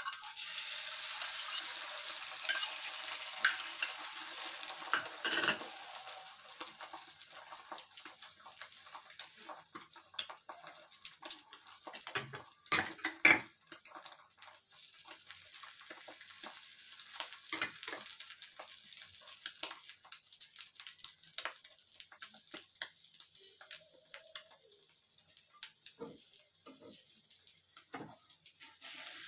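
Egg batter and a chapati frying in oil in a pan: a steady sizzle, strongest in the first few seconds and then settling lower, with frequent light clicks and taps of a utensil against the pan.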